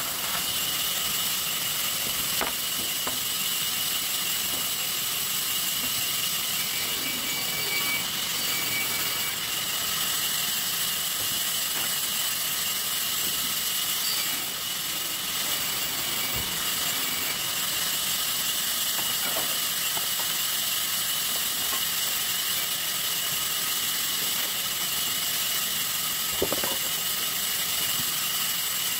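Sawmill saw machine running steadily with a high-pitched whine and hiss, with a few brief knocks along the way.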